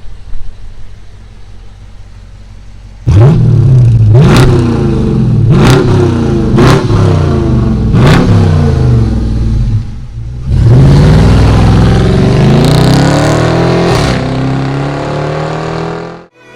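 Dodge Charger R/T's V8 rumbling low, then from about three seconds in accelerating hard. The engine note climbs and drops sharply four times, as at upshifts, then climbs in one long pull before cutting off abruptly near the end.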